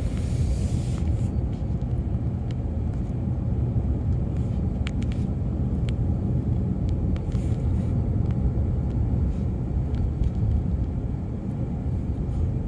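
Car interior noise while driving: a steady low rumble from the engine and the tyres on the road.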